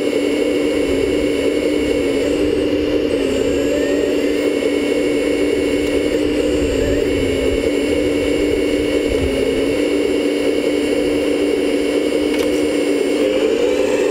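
Hydraulic pump of a 1/14-scale RC excavator whining steadily as the excavator digs and swings its bucket, the pitch wavering slightly.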